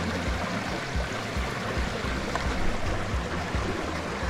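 Steady rushing of a flowing river, with irregular low thumps underneath.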